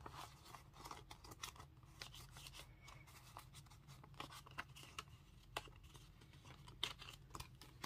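Faint rustling and soft flicks of paper banknotes being counted by hand, with light crinkles of a clear plastic cash envelope.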